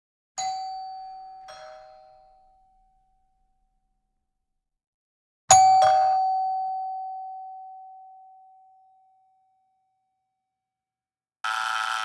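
Two-note ding-dong doorbell chime, a high note then a lower one, sounding twice about five seconds apart, the second time louder with a long fading ring. Near the end an electric doorbell buzzer starts a steady buzz.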